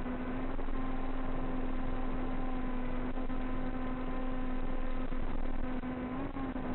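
A steady motor hum with overtones over a constant rushing noise; the hum rises briefly in pitch near the end.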